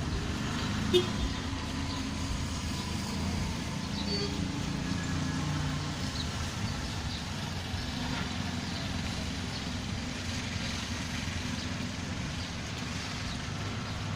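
Road traffic: motor vehicles running with a steady low rumble, and a short sharp click about a second in.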